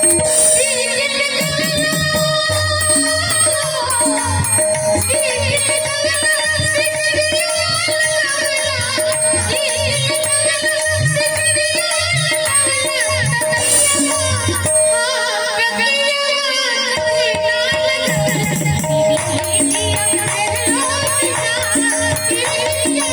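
Indian folk song sung by a male singer in a high, woman-like voice, with wavering sung lines over rhythmic rattle-like percussion and a steady held tone underneath.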